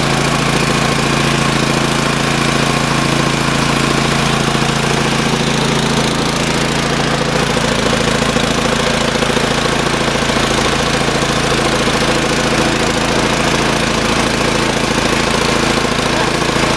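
Gasoline engine of a portable pull-start air compressor running steadily at an even speed after its cold start, with the choke fully off.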